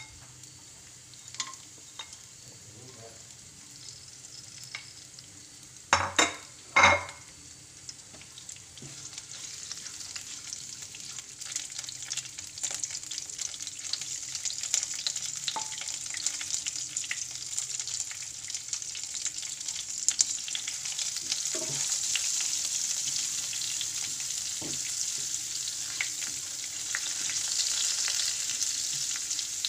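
Whole spices, lemongrass and a ground chilli spice paste frying in oil in a wok and being stirred with a spatula. The sizzle is faint at first and grows steadily louder from about a third of the way in, once the paste is in the pan. Two sharp knocks come close together about six seconds in.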